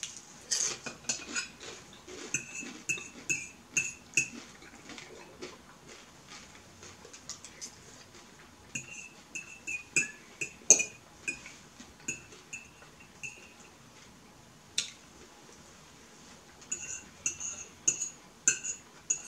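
A metal fork clinking and scraping against a ceramic plate while picking up food: many short clicks, some with a brief ring, coming in bunches.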